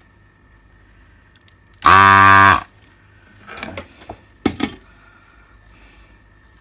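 Desoldering iron's vacuum pump buzzing loudly for under a second as it sucks molten solder off a joint, followed by brief scraping and clicking of the tool against the circuit board.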